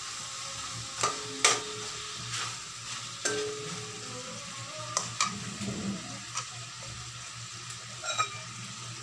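Chicken wings frying in oil in an aluminium wok, with a steady sizzle, as a metal spatula stirs and turns them, clinking and scraping against the pan now and then.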